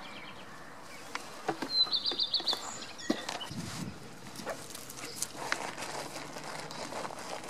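Young goats shuffling and nibbling close around a person's feet, with scattered light hoof steps and rustles. About two seconds in, a short high chirping trill of about six quick notes.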